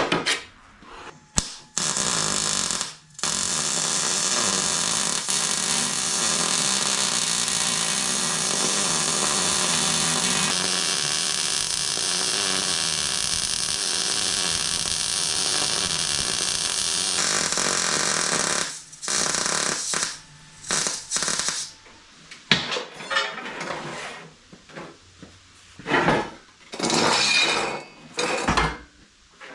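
Electric arc welding on steel: the arc burns steadily for about sixteen seconds, with one brief break near the start. In the later part it comes in a string of short bursts, like tack welds or short stitches.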